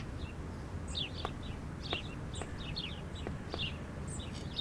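Small birds chirping, many short quick calls scattered throughout, over low steady outdoor background noise with a few faint ticks.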